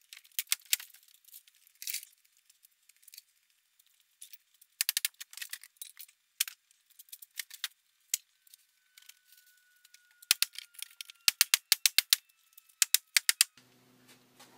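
Sharp clicks and light rattles of small hard objects, scattered at first, then in quick runs of several a second about five seconds in and again near the end.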